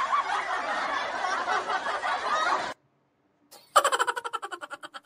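A dense, continuous noisy stretch that cuts off suddenly, then after a short silence a rapid run of "ha-ha-ha" laughter that fades out, the laughing sound in a children's clip illustrating laughing.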